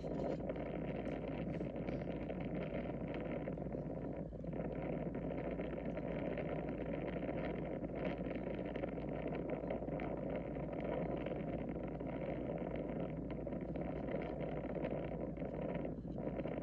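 Steady rushing noise of an R/C plane in flight: airflow and propeller noise over the onboard camera's microphone. It drops briefly about four seconds in and again near the end.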